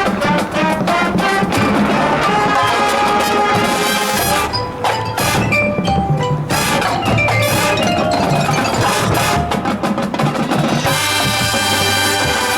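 High school marching band playing a percussion-led passage: rapid mallet percussion (marimba, xylophone, glockenspiel, chimes) with drums, and sustained wind chords coming in near the end.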